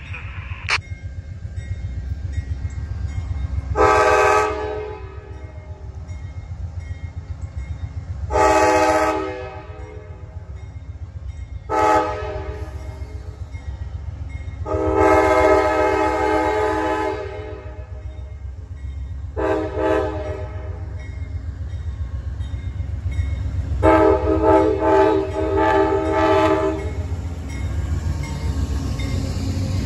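Amtrak GE P42DC diesel locomotive sounding its multi-chime air horn for a grade crossing: six loud blasts, mostly long with a couple of short ones, ending in the longest, held for about three seconds, as the locomotive nears the crossing. Under the horn runs the low rumble of the approaching locomotive and train.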